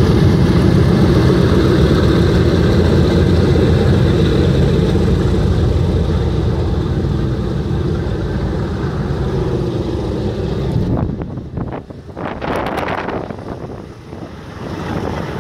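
The four Wright R-1820 Cyclone radial engines of a B-17G Flying Fortress run at taxi power, a steady low propeller drone that slowly fades as the bomber taxis away. From about eleven seconds in, the drone drops off and wind buffets the microphone in gusts.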